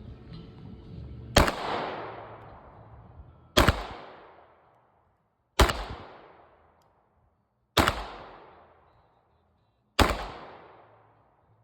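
Glock 48 9mm pistol fired five times in slow, evenly spaced single shots, about two seconds apart. Each shot is a sharp crack followed by a long echoing tail.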